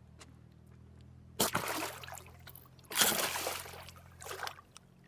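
A big arapaima thrashing at the surface of shallow water: two loud splashes about a second and a half apart, then a smaller one near the end.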